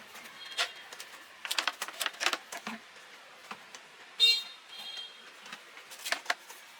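Scattered light clicks, taps and knocks from objects being handled, with a short high-pitched squeak a little past the middle and a fainter one just after.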